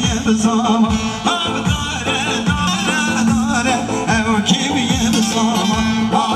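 Kurdish wedding dance music: an ornamented sung melody over a held drone and a steady drum beat, roughly two strokes a second.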